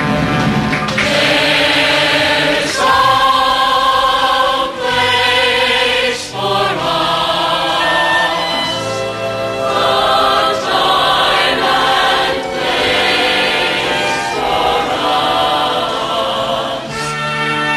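Music: a choir singing over instrumental backing.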